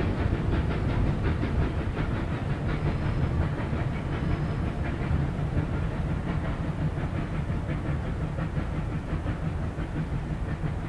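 Steam locomotive under way: a fast, even beat of exhaust chuffs over a low rumble.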